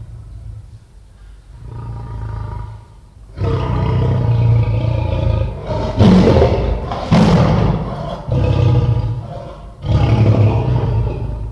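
Lion roaring: a fainter deep roar about two seconds in, then a run of loud, deep roars one after another, each lasting one to two seconds.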